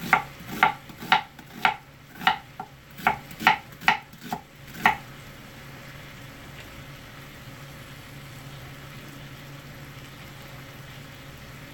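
Large kitchen knife chopping an onion on a plastic cutting board: about ten sharp knocks, roughly two a second, stopping about five seconds in. After that only a steady low hum remains.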